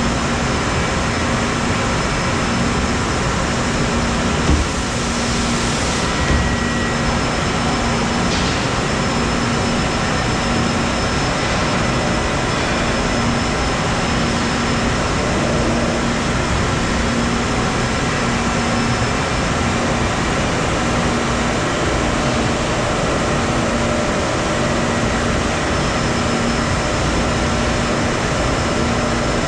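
Steady din of a machine shop floor with automated CNC lathes running: a constant hum with several steady whining tones and a low tone pulsing on and off about once a second. Two short knocks stand out about four and a half and six seconds in.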